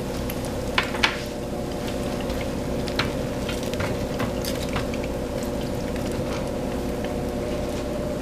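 Hot frying oil in a deep pot sizzling with scattered sharp pops and crackles, over a steady hum.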